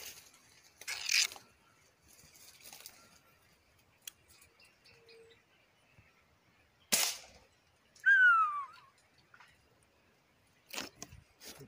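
Air rifle shot: a single sharp crack about seven seconds in, after a shorter noisy burst about a second in. Right after the shot comes a loud whistle that falls in pitch over under a second, the loudest sound here, followed by a couple of clicks near the end.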